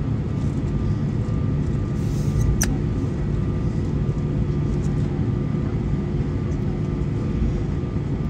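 Airbus A320 cabin noise on the ground after landing: a steady low rumble with a few level hums running under it, and one sharp click about two and a half seconds in.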